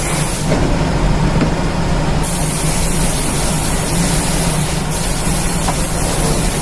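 Steady, loud hum and noise of a running machine.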